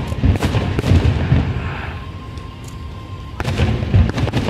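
Fireworks bursting: a rapid run of booms and sharp cracks with rumbling echoes, a lull, then another cluster of bursts near the end.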